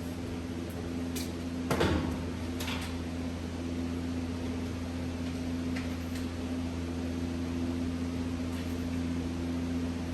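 Steady low mechanical hum, with a few faint clicks and one louder knock about two seconds in.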